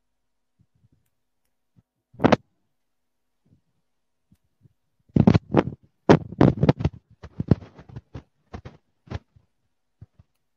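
Irregular short knocks and clicks: one about two seconds in, then a quick cluster of about a dozen from about five to nine seconds in.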